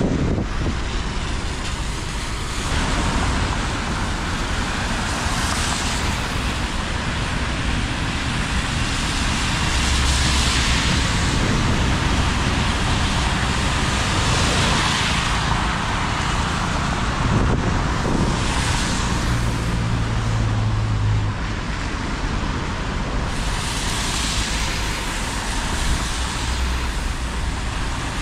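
Traffic on a rain-wet city street: cars and buses passing one after another, tyres hissing on the wet road over running engines, each pass swelling and fading. A low engine drone holds for about two seconds about two-thirds of the way through.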